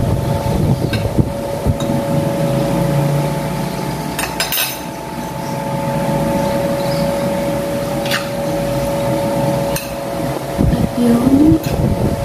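Metal spoon and fork clinking and scraping against a ceramic dinner plate while eating: a quick cluster of clinks about four and a half seconds in, and single clinks near eight and ten seconds. A steady hum runs underneath.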